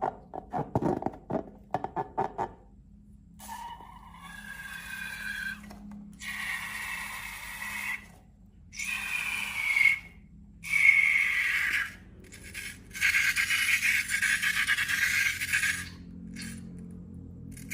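Slime and rubber balloons being handled: a quick run of wet crackles and clicks, then several squeaky scraping rubs of one to three seconds each, with short pauses between.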